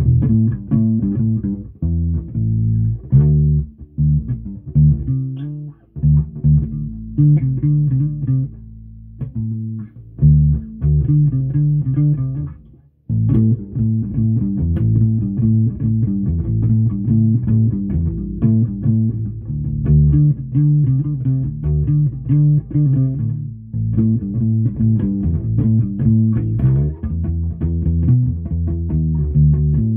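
Electric bass guitar played fingerstyle, an improvised line of plucked low notes, with a brief break a little under halfway through.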